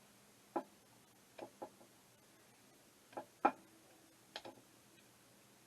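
Small, sharp metallic clicks and taps, about eight scattered irregularly with the loudest about three and a half seconds in, from a small tool working at a stuck retaining clip on a carburetor's choke linkage.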